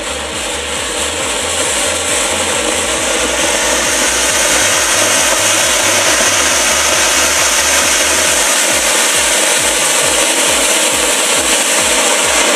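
A giant flowerpot (cone-shaped ground fountain firework) spraying sparks with a steady, loud hiss, over a low beat of background music.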